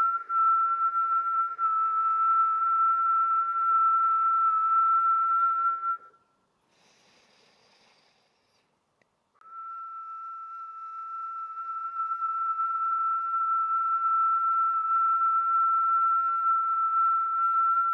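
A woman whistling one steady note on a slow, controlled exhale. This is a whistled-breath exercise that stretches the out-breath as long as possible. About six seconds in the note stops for a faint breath in through the nose, then the same note is held again for the rest of the time.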